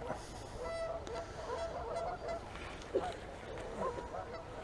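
Geese honking: many short calls scattered throughout, with one brief louder sound about three seconds in.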